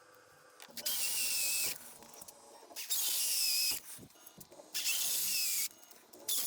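A small electric motor whirring in three short bursts of about a second each, with a high wavering whine.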